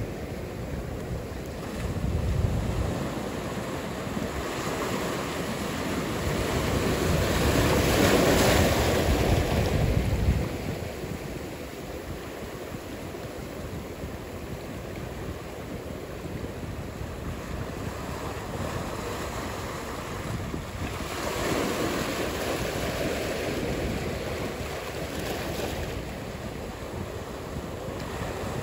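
Ocean surf: a steady wash of waves with two broad swells as sets break, the first and loudest about a third of the way in, the second about two-thirds in.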